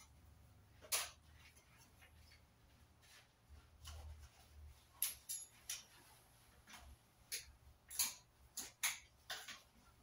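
Clothes hangers clicking and clacking against the metal rail of a clothes rack as shirts are hung, a scattering of short, sharp ticks, most of them in the second half.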